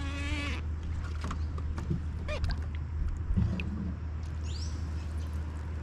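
A short animal call with a wavering pitch right at the start, then scattered drips and small splashes as a wet rope and a crab pot net are hauled up out of river water, over a steady low hum.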